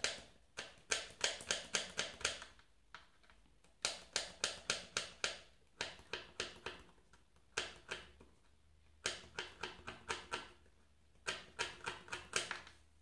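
Quick runs of sharp metallic clicks and scratches, several a second, in bursts with short pauses, as a diode's thin wire leads are worked and twisted onto the end of a copper coil.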